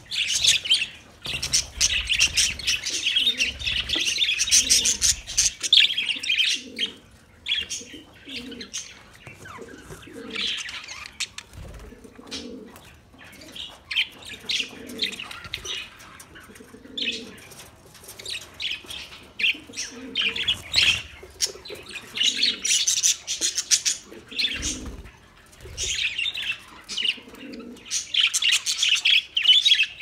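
Flock of budgerigars chattering: a dense mass of high chirps and warbles that thins out in the middle and builds up again near the end.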